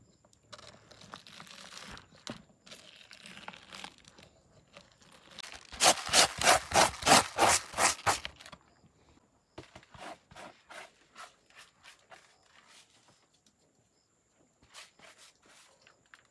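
Hands pressing sliced fruit into a plastic jar with soft scratchy handling noise. About six seconds in comes a loud run of quick scraping strokes, about four a second for two seconds, as a hand rubs coarse salt around a plastic colander, followed by lighter clicks and scrapes.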